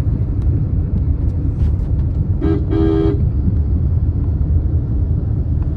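Steady low road and engine rumble heard from inside a moving car, with a vehicle horn honking twice, briefly and then a little longer, about two and a half seconds in.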